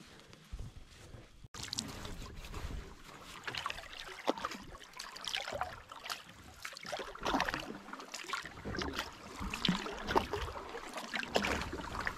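Canoe paddling on a lake: paddle strokes splashing and water lapping against the hull, with wind on the microphone. It starts suddenly about a second and a half in, with irregular louder splashes.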